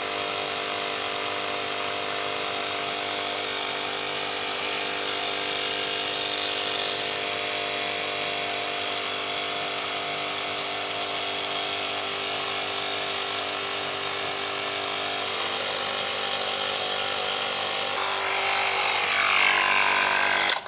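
Small electric tyre inflator motor running steadily while it pumps up a freshly plugged motorcycle tyre. It gets a little louder over the last couple of seconds and cuts off abruptly at the end.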